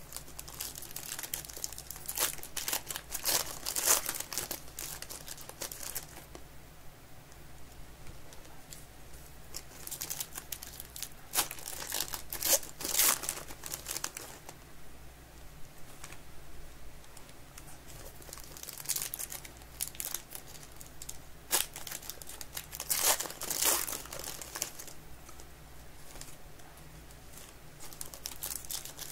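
Foil wrappers of 2023 Panini Legacy football card packs crinkling and tearing as they are ripped open by hand, in several bursts with short lulls between.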